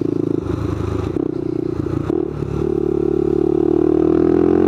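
Motorcycle engine running under way, heard from the rider's position. After a short dip about two seconds in, its pitch climbs steadily and it gets louder as the bike accelerates.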